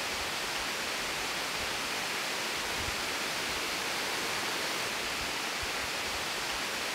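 Steady, even rush of a waterfall's falling water, with no change in level.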